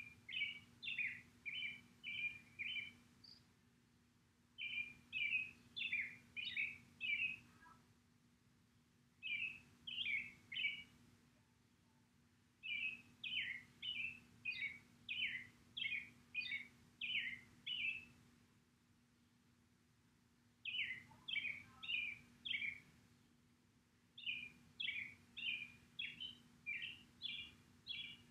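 A small songbird singing in repeated phrases of quick, falling chirps: six runs of several notes each, with short pauses between. A faint steady hum runs underneath.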